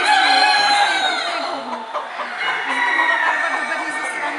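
Rooster crowing twice: a long crow at the start that falls in pitch as it ends, then a second long crow about two seconds later.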